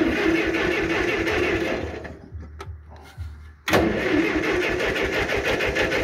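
Ferguson TO35 tractor's gasoline engine being cranked by its starter in two tries, the second starting about three and a half seconds in, turning over rhythmically without catching. The fuel had been shut off, and the engine has not yet been choked.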